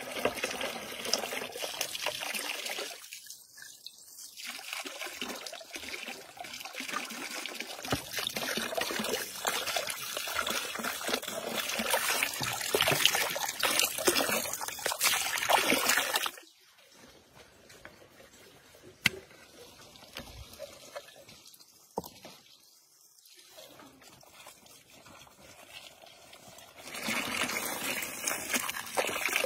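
Water trickling and running. It is louder in the first half, drops suddenly about sixteen seconds in to a faint trickle, and comes back up near the end.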